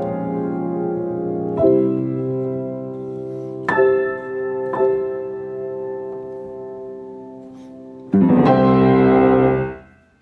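Grand piano played solo, slow closing bars: held chords with fresh notes struck every second or two and left to fade, then a loud final chord about eight seconds in, held briefly and cut off just before the end.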